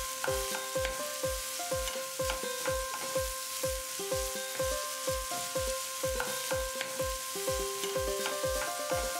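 Background music with a quick, steady drum beat, about two to three beats a second, and held notes, over the sizzle of diced elephant yam shallow-frying in oil as a spoon stirs it in the pan.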